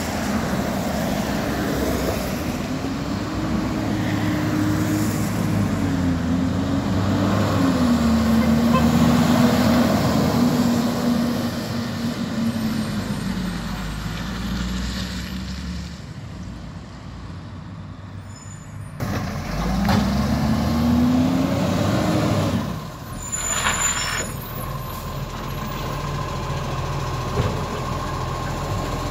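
Side-loading garbage truck's diesel engine revving up and down as it drives along the road. About three quarters of the way through an air brake hisses briefly, and the engine settles to an idle with a faint steady whine.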